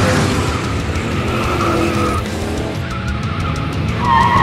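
An old van's engine running hard, with tyres screeching as it skids. The screech grows loudest near the end. Background music plays under it.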